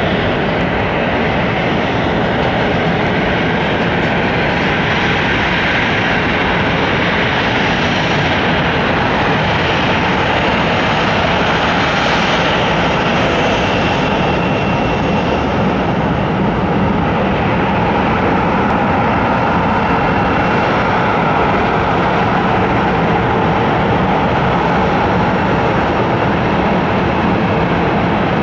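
Boeing 737-800's CFM56-7B jet engines running at idle thrust as the airliner taxis in to the gate. The engine noise is loud and steady, with a faint whine that comes and goes.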